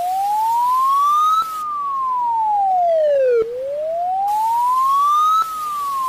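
Emergency-alert alarm siren: a single wailing tone that rises and falls slowly, about once every four seconds, over a steady hiss.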